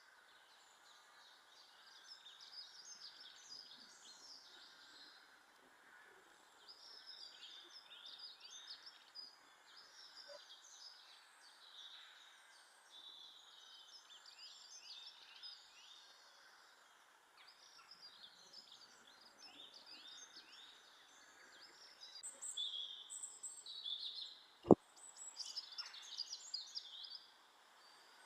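Small garden birds chirping and twittering in many short, high calls, busier and louder near the end. One sharp click sounds close to the microphone a few seconds before the end.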